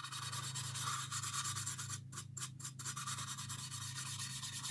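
Shoe polish being rubbed by hand onto a model locomotive's metal shell in quick back-and-forth strokes, polishing off surface rust.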